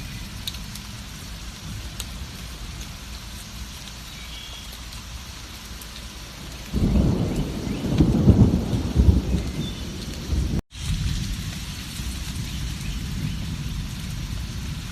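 Steady heavy rain, with a low rumble of thunder that sets in about seven seconds in and builds for about four seconds. It cuts off abruptly in a split-second gap of silence, then the rain carries on.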